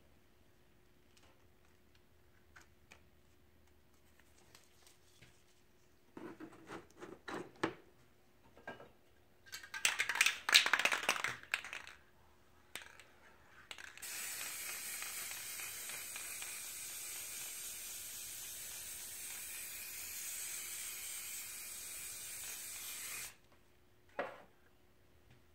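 Aerosol spray paint can: a few clicks and rattles, then a couple of seconds of fast, loud rattling as the can is shaken, then about nine seconds of steady spray hiss that cuts off suddenly. A short knock follows near the end.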